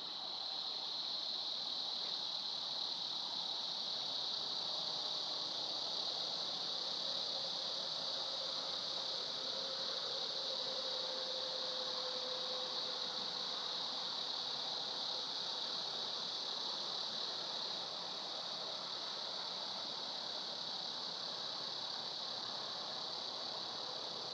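Steady, high-pitched drone of an insect chorus over a light hiss, with a faint lower tone that sinks slightly in pitch about halfway through.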